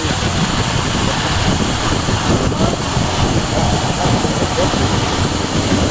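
Water jetting under pressure from a fire hydrant through a gauged test nozzle, a loud, steady rushing spray during a hydrant flow test.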